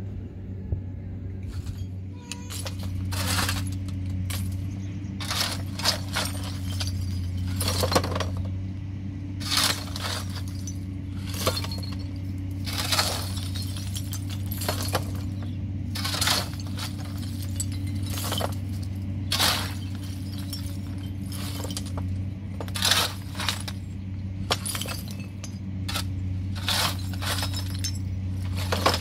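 Sharp clinks and knocks of hard objects, glass-like, coming irregularly about once every one to two seconds over a steady low hum.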